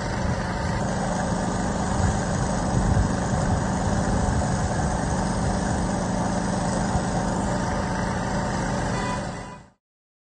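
An engine running steadily at a constant speed with a low hum, fading out near the end.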